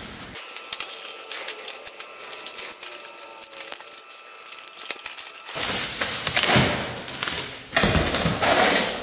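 Bubble wrap and plastic packaging crinkling and crackling as a device is unwrapped by hand, becoming louder rustling about halfway through as the wrapping is pulled free.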